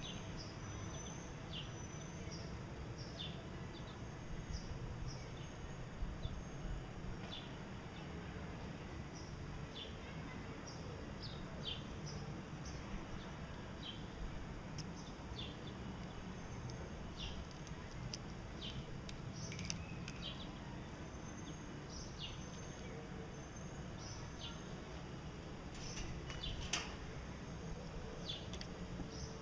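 Gouldian finches giving short, scattered high chirps and call notes over a steady low hum.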